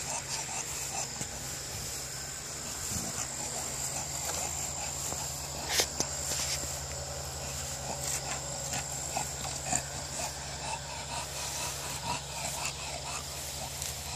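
English bulldog panting in quick short breaths, with a sharp click about six seconds in.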